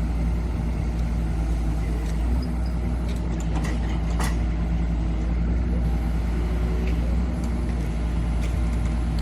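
Hydraulic excavator's diesel engine running steadily at a mid throttle setting (dial at 5). A few short sharp clicks or knocks come a little past the middle.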